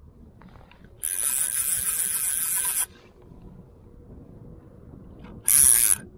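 Fly reel's click-and-pawl drag buzzing as a large hooked char is played: one long burst of about two seconds starting a second in, and a short burst near the end, each starting and stopping abruptly.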